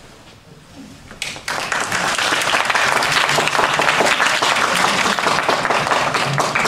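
Audience applauding. The applause breaks out about a second in, swells quickly, and keeps on as a dense, steady clatter of many hands.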